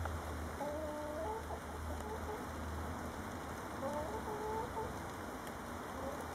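A hen clucking beside the egg she has just laid: a run of short notes about half a second in, another around four seconds in, and a few more near the end, over a steady hiss.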